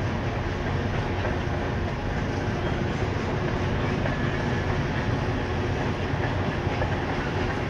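Freight train of covered hopper cars rolling slowly past, a steady, even noise of wheels running on the rails.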